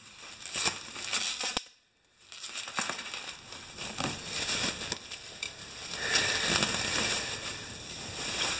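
Plastic bubble wrap crinkling and rustling as it is pulled open and unfolded by hand. There is a brief lull about two seconds in, and the crinkling is louder in the last couple of seconds.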